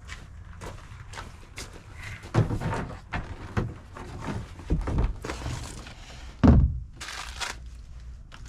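A run of dull thunks and clunks as rack kit parts are handled and set down, with lighter knocks and rustling in between; the loudest thunk comes about six and a half seconds in.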